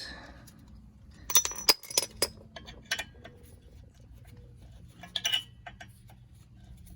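Sharp metallic clinks and taps of hand tools on the rear brake rotor's small retaining screw: a quick cluster about a second in, one near the middle and a few more near the end.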